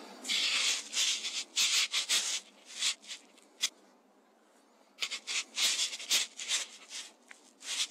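Scratchy rubbing and scuffing handling noise on the rifle-mounted night-vision scope, picked up by its built-in microphone: a run of short scrapes, a pause of about a second, then another run.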